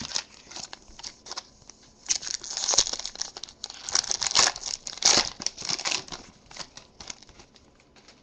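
Foil wrapper of a Topps Strata football card pack being torn open and crinkled by hand: a dense run of crackling and tearing, loudest in the middle, thinning out near the end.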